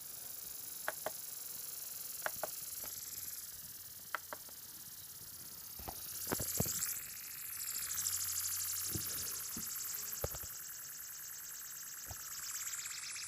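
Acer Aspire 5742 laptop's audio output giving a steady high hiss with a faint wavering squeal above it and a scattered run of short sharp clicks, the squeaky sound fault of its speakers.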